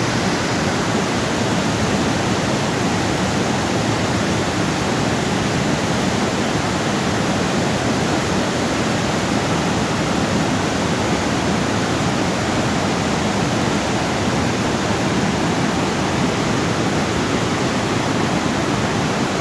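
Fast-flowing river water rushing: a loud, steady, even rush with no breaks.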